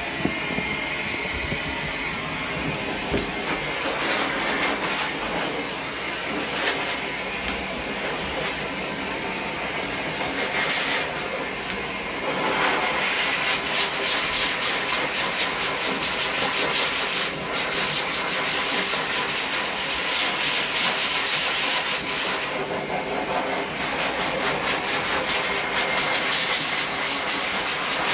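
An electric dog-grooming tool's motor runs continuously with a hiss and a faint whine. From about twelve seconds in, the sound pulses rapidly, as if the tool is being worked against the coat.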